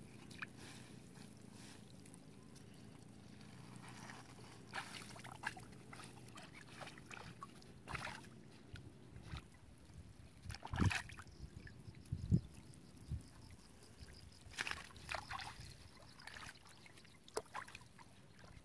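Intermittent water splashes and trickling with a few dull knocks, the strongest about eleven and twelve seconds in. A faint low hum runs under the first several seconds.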